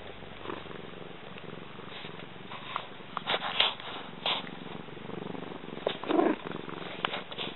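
A domestic cat purring steadily, very close to the microphone, with rustles and knocks as its fur and whiskers brush against the camera. The knocks are loudest a little past three seconds and again around six seconds.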